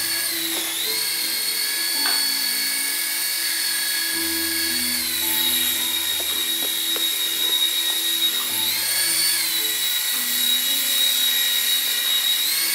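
Toy sensor helicopter's small electric motors and rotors running with a high-pitched whine, the pitch dipping and shifting several times as the motor speed changes.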